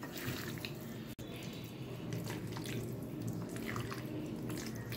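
A hand squelching raw chicken pieces through a wet curd (yogurt) and ginger-garlic marinade with fried onions, making soft, irregular wet squishes as the marinade is worked in.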